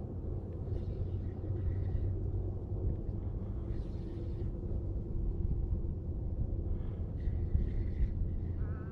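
Steady low outdoor rumble, with a faint wavering call near the end.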